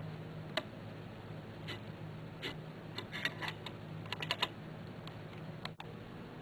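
Irregular sharp clicks and taps, several in quick runs about three and four seconds in, over a low steady hum.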